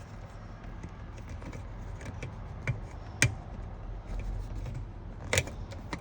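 Plastic headrest guide sleeves being worked and pushed into the top of a leather truck seat: scattered small ticks and rubbing, with a sharp click about three seconds in and another near the end.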